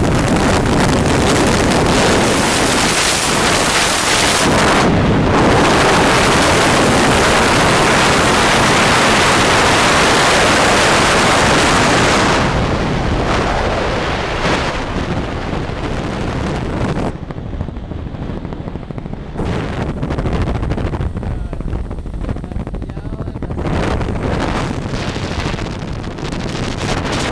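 Loud rushing wind noise buffeting the microphone, strongest for the first dozen seconds and then easing and gusting.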